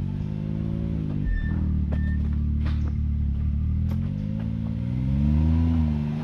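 Side-by-side UTV engine revved up and down under throttle as it crawls an obstacle, rising to its loudest about five seconds in, with a few short knocks.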